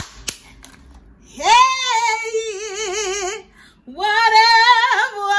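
A few sharp clicks, then a woman singing two long wordless high notes, each swooping up into the note and held with a wide vibrato.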